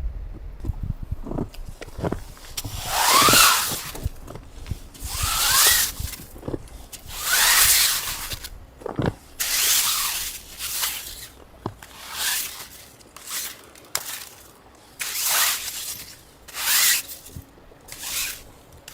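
Hand saw cutting wood in a run of about a dozen rasping strokes, one to two seconds apart, each with a ringing pitch that slides up or down.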